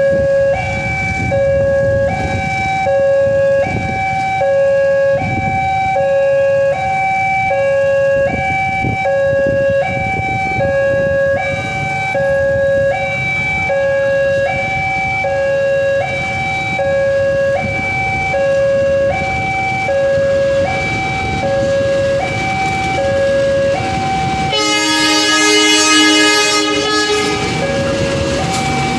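Railway level-crossing warning alarm sounding steadily, an electronic signal alternating between two tones about every two-thirds of a second. About 25 s in, the horn of an approaching KAI CC201 diesel-electric locomotive sounds loudly for about two seconds over it.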